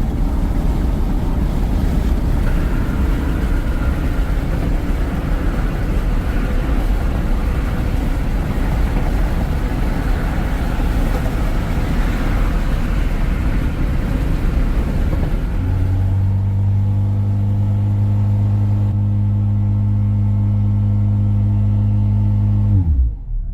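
Car running: a rough, steady rumble, then a steadier low engine note for several seconds that winds down and cuts off near the end.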